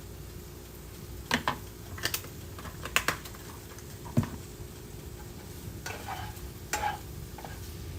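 Ramen noodles being stir-fried: a cooking utensil scrapes and knocks against the frying pan about six times, over a faint sizzle.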